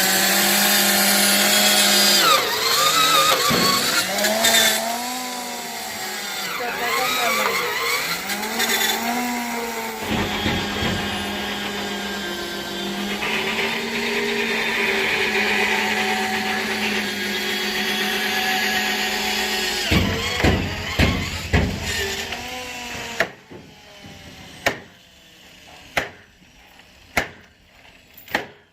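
Handheld electric power tool running with a steady whine, its pitch dipping and recovering again and again as it is pressed into the work. It stops about twenty seconds in, followed by a few sharp metallic knocks and scattered clicks.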